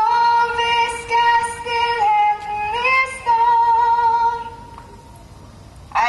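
A woman singing long held high notes with little vibrato, dropping and rising in pitch a few times before fading out about four and a half seconds in.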